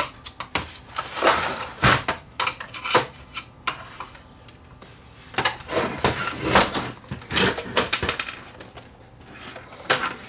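Clattering knocks and clicks of a VCR's plastic cabinet and metal chassis being handled and tipped up on its side on a workbench, in two bursts.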